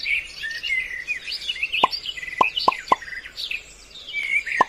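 Birdsong chirping throughout, with about five short, quick falling plop sound effects from about two seconds in as cartoon apples drop from the tree.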